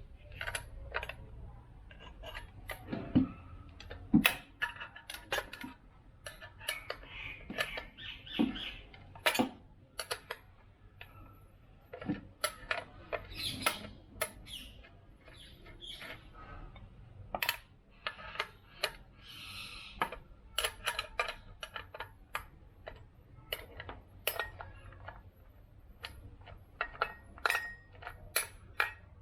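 Irregular metallic clicks and clinks of hand tools and nuts being worked off the stock exhaust mounting clamp of a motorcycle, with a few louder knocks about 3 and 4 seconds in.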